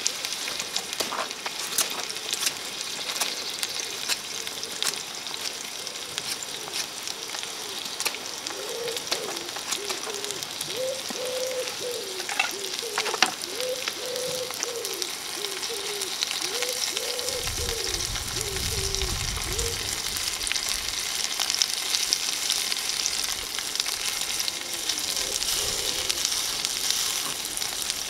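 Pumpkin and onion pieces frying in a pan over a wood-fired stove: a steady sizzle with scattered crackles, and a spatula stirring and scraping in the pan.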